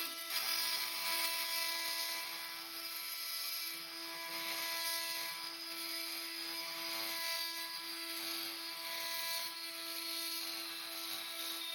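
Oscillating multi-tool running at high speed with a carbide-tooth metal-cutting blade, grinding through steel wood screws: a steady high-pitched buzz with a dense hissing grind over it.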